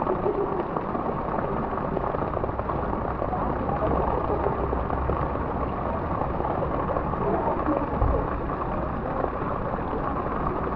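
Swimming pool water lapping and splashing, a steady choppy wash of noise.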